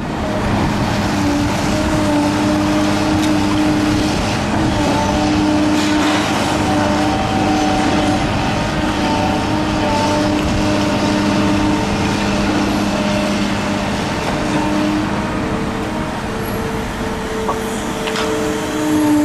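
A demolition excavator's diesel engine runs steadily under a whine that stops and restarts and shifts pitch as the machine works. A few faint knocks are heard.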